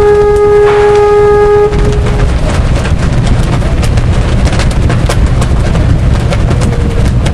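A horn sounds one steady, even-pitched blast that stops a little under two seconds in, followed by heavy wind rumble buffeting the microphone with scattered crackles.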